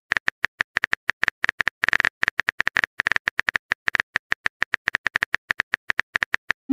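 Rapid, irregular keyboard-tap clicks, several a second: the typing sound effect of a texting-story chat app while the next message is being typed.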